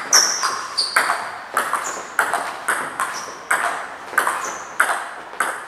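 Table tennis rally: the ball clicking off the bats and bouncing on the table in a quick, even back-and-forth, about three clicks a second.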